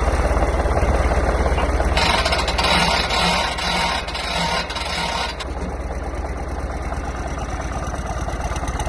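Farm tractor engine idling with a steady low pulse, and a rushing noise over it for about three seconds in the middle.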